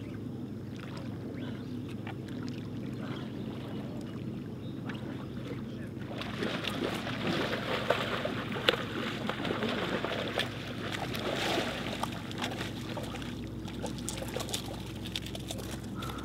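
Outdoor waterside ambience: a steady low hum with water noise. About six seconds in, a louder rushing noise with scattered clicks comes in and eases off again after several seconds.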